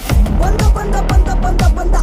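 Electronic background music starting abruptly, with a steady beat and deep bass hits that slide down in pitch.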